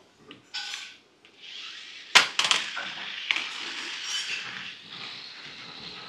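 Small plastic gesture-controlled toy car with its electric motors whirring steadily, landing with a sharp clatter about two seconds in as it is dropped to the floor, then a few lighter knocks as it settles.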